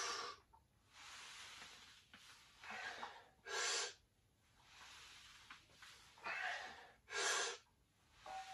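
A weightlifter breathing hard under a loaded barbell while squatting. The breaths are short and come in pairs, about every three and a half seconds.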